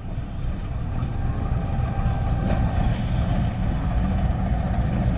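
Diesel locomotive running and moving along the track, its deep engine rumble growing louder.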